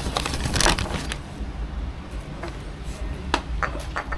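Brown paper food bag crinkling and rustling as it is held open and handled. There is a dense burst of crackling in the first second, then scattered single crackles.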